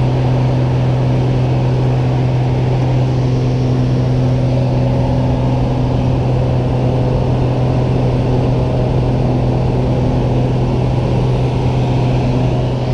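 Single-engine light aircraft's piston engine and propeller running at steady high power, heard from inside the cabin, as the plane climbs out after takeoff: a loud, even drone with a deep hum.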